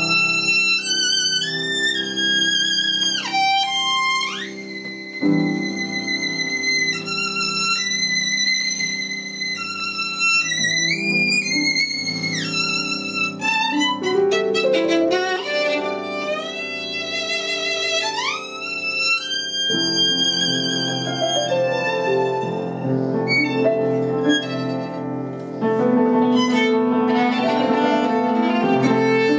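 Violin playing a high melodic line with sliding shifts between notes, over piano accompaniment whose lower sustained chords enter about five seconds in and again about two-thirds of the way through.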